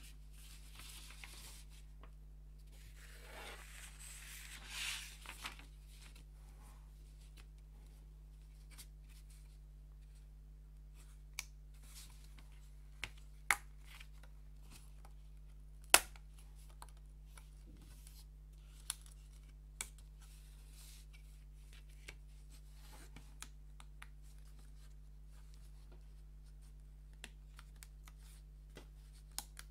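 Laser-cut wooden puzzle pieces being handled and fitted together: a rustling scrape about three seconds in, then scattered sharp clicks and taps of wood on wood, the loudest about halfway through.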